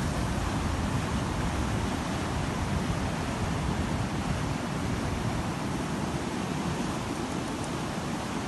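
Surf breaking on a beach, a steady wash of noise, with wind buffeting the microphone in a low, choppy rumble.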